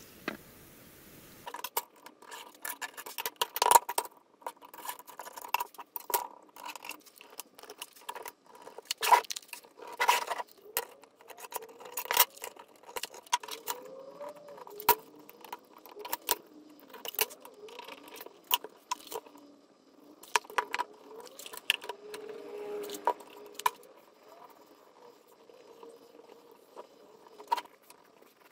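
Irregular sharp clicks, taps and scrapes of plywood pieces, a metal tape measure and a pencil handled on a wooden workbench, starting about a second and a half in.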